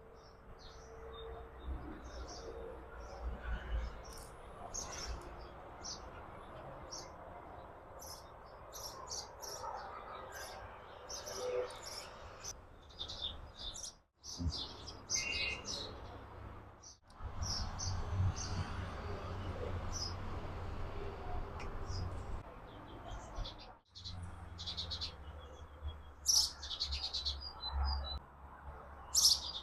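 Wild birds chirping, with many short high calls scattered throughout, over a low rumble. The sound cuts out briefly three times.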